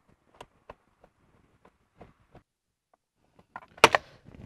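Faint ticks of a hand screwdriver turning a screw into a car's plastic lower dashboard panel, then a couple of sharp clacks near the end, the loudest sounds here.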